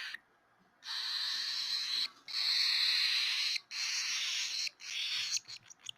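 Baby cockatiel chick giving its hungry begging cry: four long, raspy, hissing calls, often likened to a little dinosaur, followed near the end by a rapid run of short clicking sounds.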